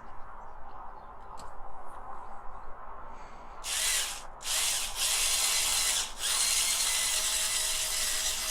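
Small power drill grinding the heads off the rivets holding a die-cast toy car's base plate. A steady high whirring grind starts about three and a half seconds in, stops briefly twice, then runs on.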